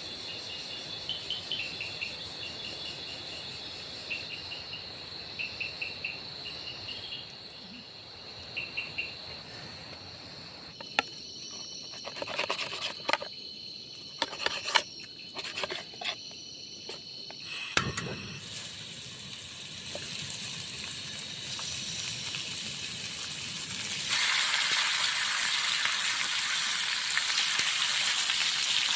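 Night insects such as crickets keep up a steady high drone with repeated short chirps. Near the middle come a few clicks and knocks. About three-quarters of the way in, vegetables hit a hot pan and begin to sizzle loudly as they fry.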